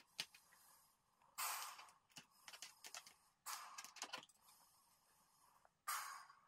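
A woman's breaths as she inflates a large latex balloon by mouth: three sharp breaths about two seconds apart, with faint clicks between them.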